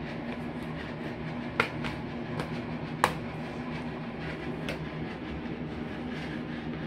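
Plastic DVD cases being handled: four sharp clicks and knocks, the loudest about one and a half and three seconds in, over a steady low hum.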